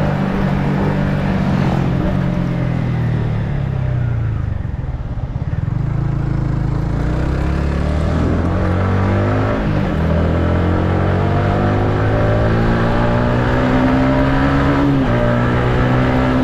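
Yamaha MT-15's 155 cc single-cylinder engine heard from onboard while riding. The engine note falls as the bike slows and stays low for a couple of seconds. It then climbs again as the bike accelerates, with brief dips that mark gear changes about ten seconds in and near the end.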